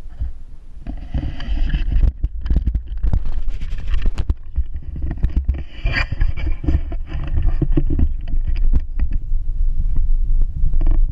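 Wind rumbling on the microphone of a camera riding along on a bicycle, with frequent knocks and rattles as the bike rolls over a brick-paver path.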